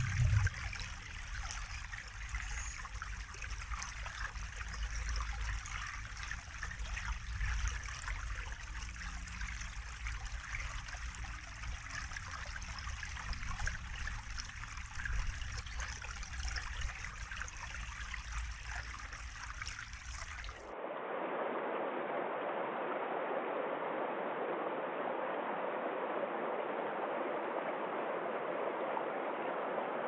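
Small woodland brook babbling and trickling over a low drop among tree roots. About two-thirds of the way through it cuts abruptly to a steadier, duller rushing of a rocky mountain stream tumbling over small cascades.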